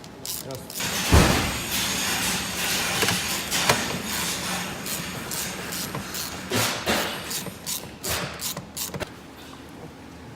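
Two small bolts on a Tesla Model S cabin air filter housing being unscrewed with a hand tool, with clicking, scraping and knocks of tool and plastic parts. There is a knock about a second in, and the clicks thin out near the end.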